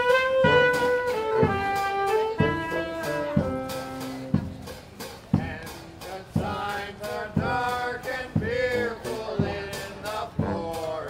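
Live band music: a wind tune of long held notes over a bass drum struck about once a second. About halfway through, the melody turns to bending, wavering notes.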